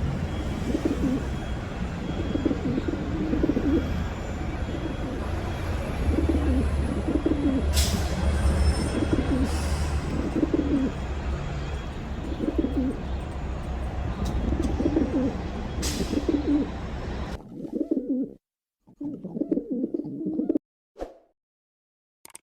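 Pigeon cooing over and over in low, throaty bouts, with a steady low rumble underneath. About three-quarters of the way through the rumble cuts off suddenly, two last coos are heard on their own, and then the cooing stops.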